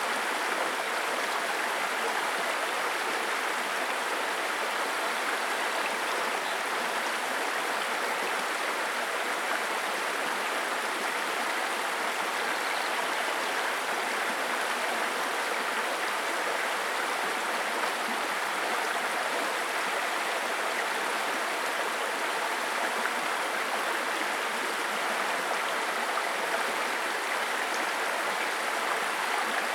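Babbling brook: shallow stream water running over stones in a steady, even rush with no breaks.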